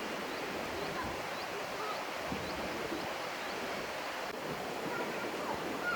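Steady rush of a flowing stream, with faint short high chirps scattered through it.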